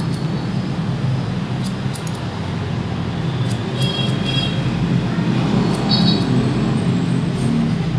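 Barber's shears snipping hair cut over a comb, a scattering of short sharp snips with a couple of brief high rings from the blades, over a steady low rumble.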